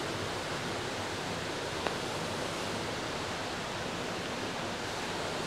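Steady, even rushing of water, with one faint click about two seconds in.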